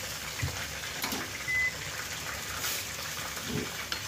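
Wooden spatula stirring thin, watery masala gravy in a hot pan: liquid sloshing over a steady simmering hiss, with a few soft knocks of the spatula against the pan and one brief high tone about a second and a half in.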